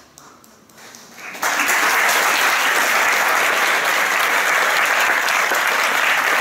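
A large audience breaks into applause about a second and a half in, the clapping starting abruptly and then holding steady and loud.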